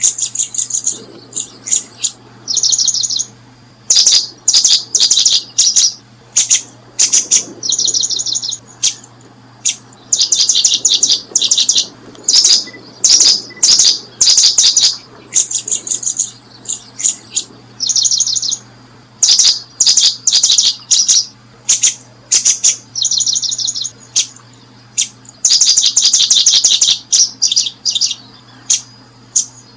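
Small birds chirping: rapid trains of high-pitched chirps, each about a second long, repeating every second or two.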